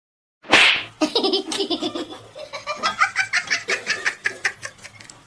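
Loud laughter in rapid repeated bursts, fading toward the end, just after a short, sharp noisy burst about half a second in.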